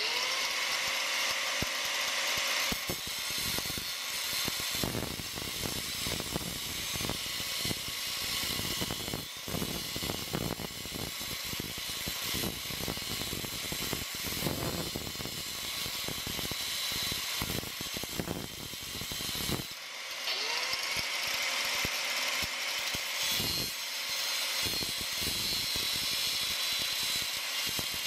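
Electric rotary cutting tool (angle grinder or cut-off wheel) spinning up to a steady high whine, with a grinding hiss and irregular knocks as it cuts the exhaust pipe. It is switched on again about 20 seconds in and spins back up.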